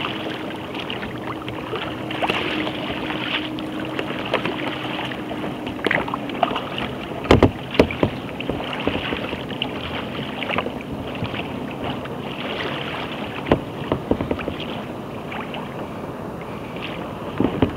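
Choppy water sloshing and slapping against the hull of a WS Tsunami 165 sea kayak under way, with wind on the microphone; this is boat-wake chop. A few sharp slaps or knocks stand out, a cluster about halfway through, one or two a little later and another near the end.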